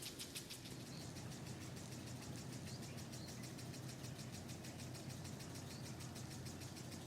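Quiet outdoor ambience: a steady low hum under a rapid, high-pitched pulsing of about ten pulses a second, which fades after about a second.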